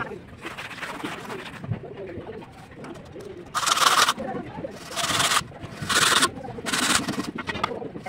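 Four scraping strokes about a second apart: a plastic pipe section drawn along fresh cement mortar to shape the joints of a brick wall. Fainter scraping and handling of wet mortar fills the first half.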